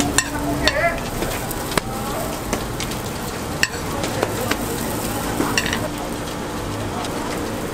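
Mugwort hotteok dough cooking on a hot flat metal griddle: a steady light sizzle, with a few sharp taps and scrapes of a metal spoon and spatula against the griddle.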